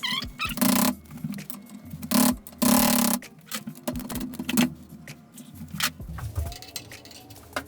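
Metal clicks, knocks and short rattles of tools and bicycle parts being handled and fitted together, uneven and irregular, with a few brief metallic rings near the start.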